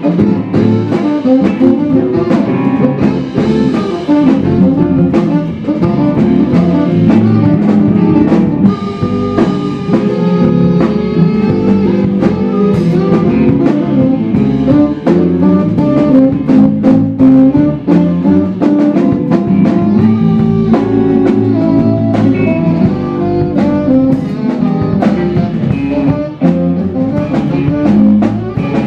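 Live blues band playing: a saxophone carries the lead over electric guitar and a drum kit keeping a steady beat.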